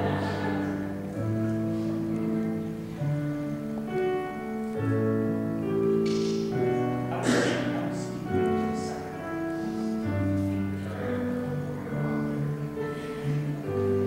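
Slow instrumental music of long held chords over a bass line that changes every second or two. Two brief rustling noises come midway.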